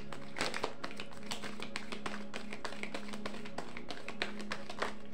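A deck of oracle cards being shuffled and handled by hand: a quick, dense run of small card clicks and taps, with one card laid down near the end. Soft, steady background music plays underneath.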